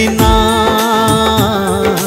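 Hindi devotional song: a singer holds one long sung note that wavers near its end, over a steady rhythmic beat of the accompaniment.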